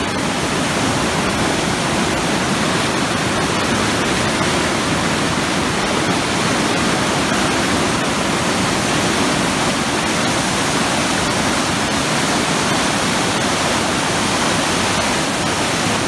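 Loud, steady rush of water released from a concrete dam outlet, plunging and churning in white water in the pool below.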